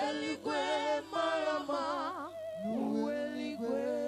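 Gospel worship singing: voices sing a melodic phrase with wavering vibrato and long held notes, with little or no instrumental backing.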